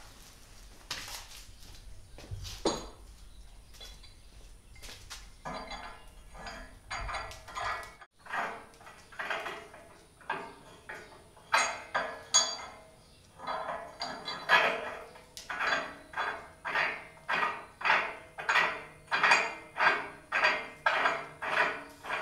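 A few scattered knocks, then steady rhythmic metal clinking, about two strokes a second, as a threaded fitting on a tow strap is worked tight onto a tractor's steel front bracket.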